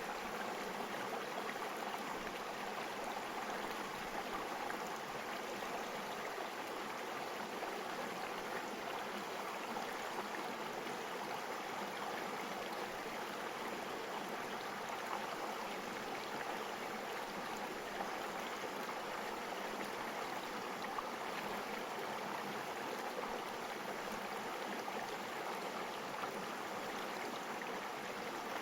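A stream of water flowing steadily over rocks, an even babbling rush with no change in level.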